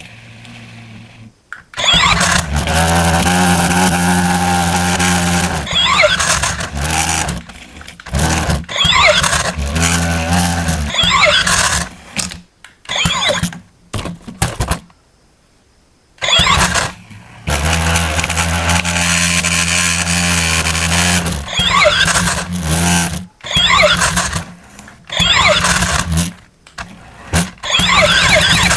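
Electronic engine-start and running sound effects from a toy vehicle's built-in speaker. They play in repeated bursts that start and stop abruptly, with several sharp breaks of silence.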